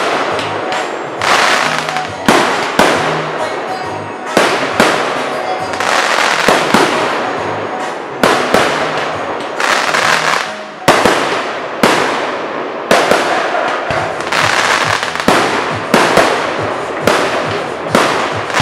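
Aerial fireworks shells bursting in quick succession, roughly one or two sharp bangs a second. Each bang trails off in a long echo, with crackling in between.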